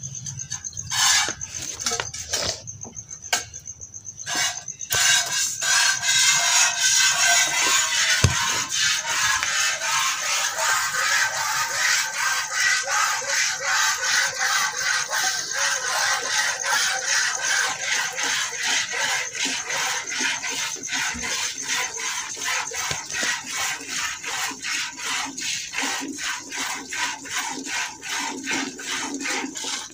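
A cow being milked by hand: jets of milk squirt rhythmically into a steel milk can, about two to three squirts a second. The squirts become fuller and louder about five seconds in.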